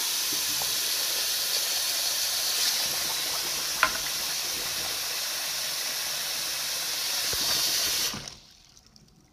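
Bathroom sink faucet running hot water into a glass jar held under the stream, a steady rushing hiss with one brief click partway through. The tap is shut off about eight seconds in and the sound stops suddenly.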